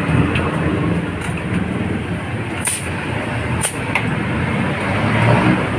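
Steady rumble of motor traffic, with a few sharp metallic clicks as a flat wrench works the headset locknut of a bicycle, about midway through.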